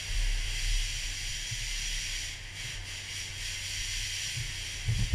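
Boat under way: a steady hiss with a low, even engine hum beneath it.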